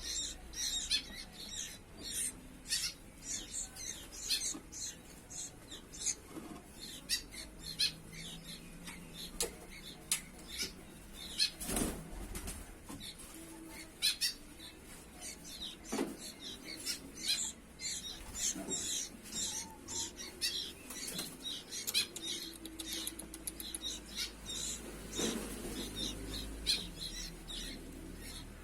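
Sooty-headed bulbul chicks making rapid, high-pitched chirps, several a second, with a few sharp knocks around the middle.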